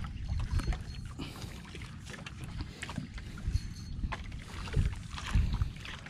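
Wind buffeting the microphone and water lapping and slapping against a small outrigger canoe, with scattered light knocks from the boat.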